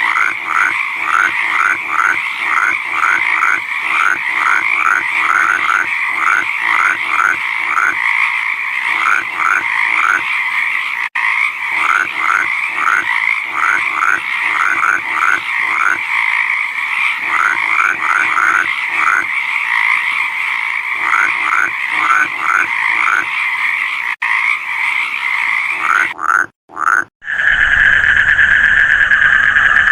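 Frog chorus: one frog calls in short, rapidly repeated notes, about three or four a second, over a dense, steady chorus of other frogs. About three seconds before the end the recording cuts off briefly and gives way to a louder, steady, shrill chorus.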